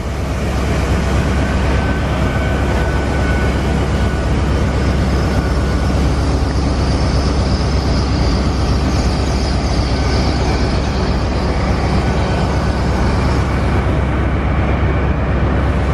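Hitachi Intercity Express Train passing through the station: a steady rumble and rush of wheels on rail, with a faint steady whine, easing near the end as the train draws away.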